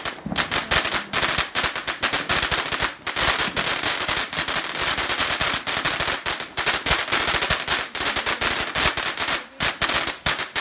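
Fireworks going off in a rapid, unbroken run of crackling bangs, many each second.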